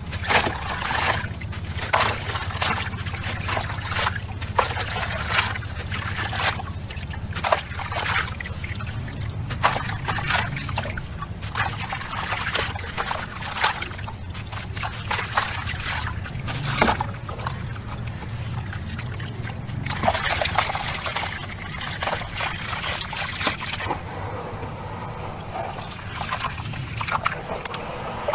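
A dried sand-cement bowl shape crumbled by hand into a tub of water: gritty crunching, with crumbs and chunks splashing into the water over and over. Near the end, hands slosh through the muddy water.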